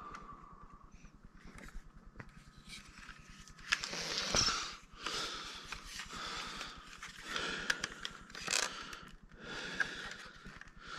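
Soft rustling and handling noises from a boxed action figure and its plastic packaging, in short bursts of about a second with a few small clicks.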